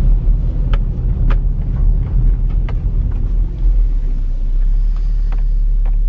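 Car driving at low speed, heard from inside the cabin: a steady low rumble of engine and road noise with scattered sharp ticks. The rumble evens out about four and a half seconds in.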